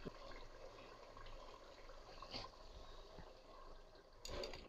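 Faint bubbling of thick curry simmering in an aluminium pot, with a few soft taps and plops as whole green chillies are dropped in; the loudest comes about four seconds in.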